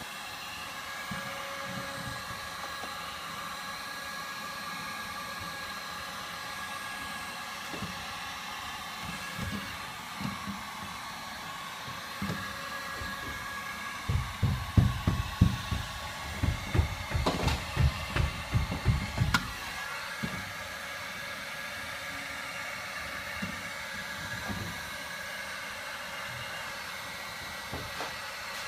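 Electric heat gun running steadily with a fan whine and hiss, heating sound-deadening mat on a car door to soften it before rolling. About halfway through comes a run of dull low thumps lasting several seconds.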